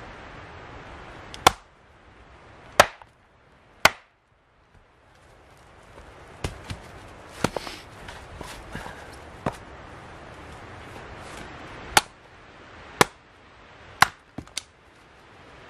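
Wood being chopped: a series of sharp, loud blade strikes, about one a second at first, then softer and irregular, then spaced about a second apart again near the end.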